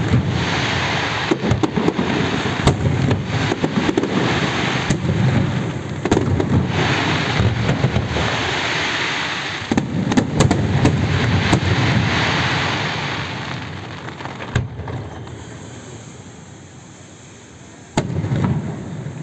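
Aerial fireworks going off: a dense run of bangs over steady crackling, which stops abruptly about fourteen and a half seconds in and fades to a low rumble, with one more bang near the end.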